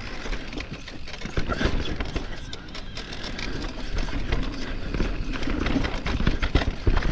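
Electric mountain bike clattering down a rooty dirt trail. Its tyres knock over roots in a quick, uneven run of impacts, over a steady rattle from the bike.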